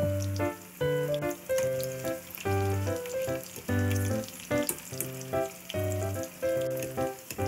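Battered, shrimp-stuffed green cucumber peppers sizzling and crackling as they fry in shallow oil in a pan, with a background music track of gentle notes and a steady bass beat on top.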